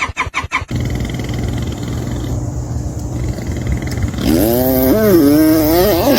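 A person making sound effects with the voice: a quick run of clicks, then a steady low rumbling growl, then from about four seconds in a pitched, wavering whine that bends up and down.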